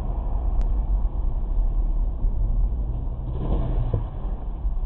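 Steady low rumble of a car on the move, engine and road noise as a dashcam picks them up, with a brief louder swell about three and a half seconds in.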